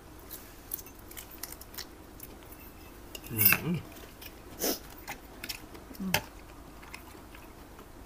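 Close-up eating sounds: chewing of glass-noodle papaya salad, with many small clicks of utensils against a stainless-steel tray. A few louder short mouth sounds come about three and a half, four and a half and six seconds in.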